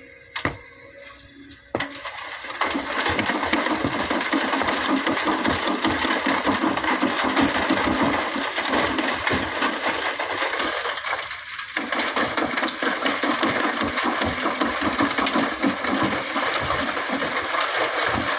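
Sand and stones pouring from an excavator bucket into a dump truck bed: a dense rattling hiss of many small impacts, starting about two seconds in.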